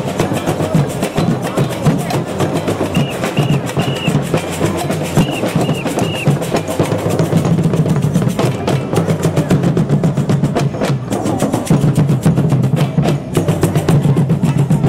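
Lively band music driven by hand drums and busy percussion, with a run of short high notes about three to six seconds in.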